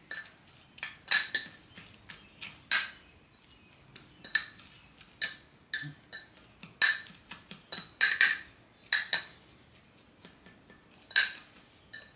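Metal fork clinking and tapping against a small ceramic bowl while mashing bread soaked in milk, in irregular light strikes about one or two a second, each with a brief ring.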